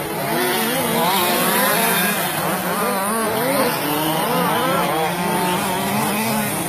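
Several radio-controlled racing trucks running together, their motors revving up and down so that their whines rise and fall over one another.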